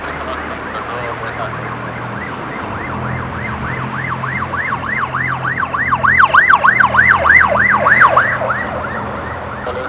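A siren on a fast yelp, its pitch sweeping up and down about three times a second. It swells to its loudest a little past the middle, then fades, over a low steady hum.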